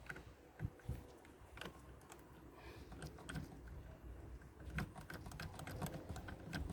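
Scattered light clicks and taps of metal parts being handled while a car battery's negative terminal is fitted onto a battery disconnect switch.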